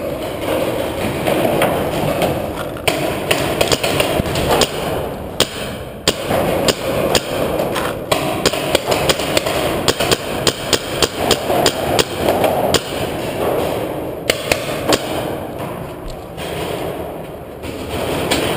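Paintball markers firing: sharp pops, scattered at first, then coming several a second in rapid strings through the middle, then thinning out, in an underground cave.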